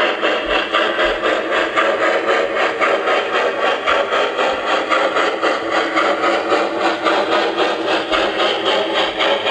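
O scale model steam locomotive's sound system chuffing in a steady, even rhythm as it pulls a freight train, mixed with the running noise of the train on the track.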